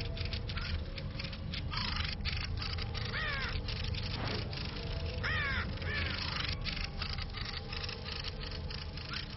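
Young raven giving several harsh, downward-sweeping calls while being mobbed, over a rapid dry clicking chatter.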